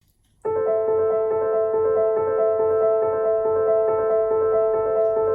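Background music on piano or keyboard, a steady pattern of evenly repeated notes over sustained tones, starting about half a second in.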